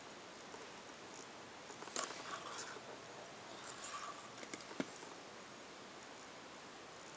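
Faint steady hiss with scattered rustling and a few small clicks, the sharpest just under five seconds in, from a handheld camera being moved while it films a screen.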